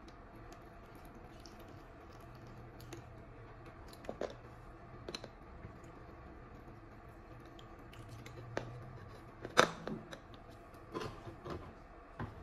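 Small plastic clicks and taps from a jug and funnel being handled on top of a lead-acid car battery while its cells are filled. A sharper knock comes about nine and a half seconds in, and a few more taps follow near the end.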